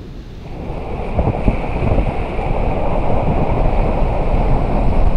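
Wind buffeting the microphone over rushing water, swelling about half a second in and staying loud, with a steady high whine underneath.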